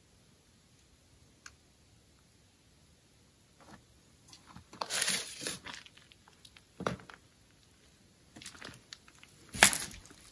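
Irregular crunching and crackling noises that start a few seconds in and come in uneven bursts, the loudest near the end.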